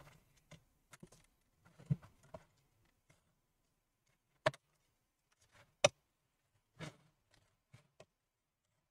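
Scattered light clicks and taps of a pry tool working under a laptop's plastic screen bezel, cutting through the double-sided adhesive tape that holds it, with two sharper clicks a little past the middle.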